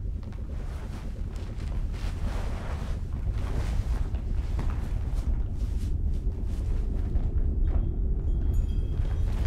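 Deep, steady rumbling drone that grows gradually louder, with swishing noise over it and a few faint high tones near the end: an ominous sound-design rumble.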